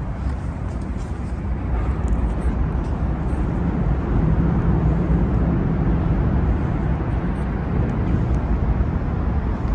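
Twin-turbocharged 408 cubic-inch LS V8 of a restomod Camaro running steadily with a low drone, a little louder from about four seconds in.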